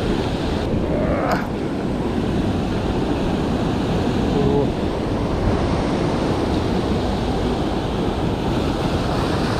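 Surf breaking and washing over a rocky shore, with wind buffeting the microphone.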